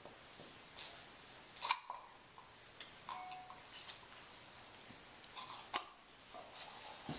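Faint, scattered light clicks and scuffs on a hardwood floor as a Labrador puppy shifts about and nudges an empty plastic pudding cup, with two sharper clicks, one near two seconds in and one near six.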